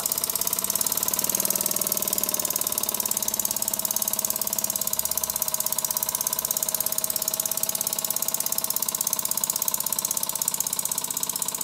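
Burnac Vulcan toy steam engine running fast and steadily, its cylinder giving a rapid, even train of exhaust beats while the bearings run in.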